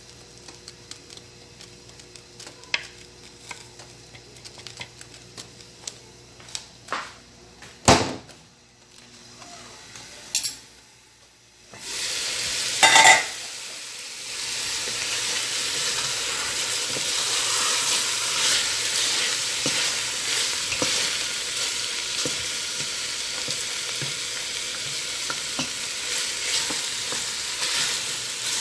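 A few scattered clicks and knocks of utensils, then about twelve seconds in a steady, loud sizzle of chicken pieces frying in a steel pot, stirred with a wooden spoon.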